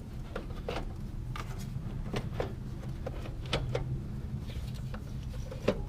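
Scattered light knocks and scrapes of a replacement alternator being maneuvered back into its mounting spot in the engine bay, over a steady low hum.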